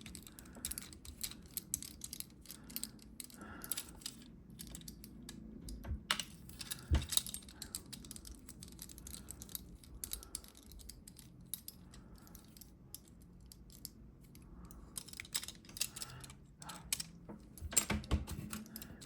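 Small clicks, taps and scrapes of plastic being handled as a toy weapon's battery compartment is opened and its batteries are taken out, with louder knocks about seven seconds in and near the end.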